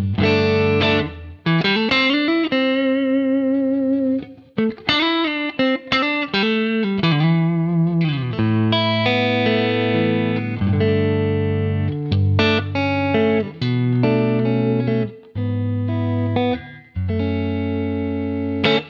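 Electric guitar played through a Quad Cortex amp modeler with a Legendary 87 compressor clamping hard and its makeup gain pushed up to bring the level back. Chords and single-note lines, with wavering, bent notes about two seconds in and a slide down near eight seconds. The notes sustain long and even.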